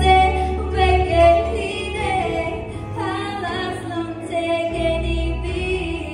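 A woman singing a song with musical accompaniment, starting right at the outset with held, gliding notes.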